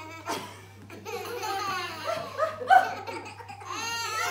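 A group of toddlers laughing and squealing together. The laughter grows louder about a second in.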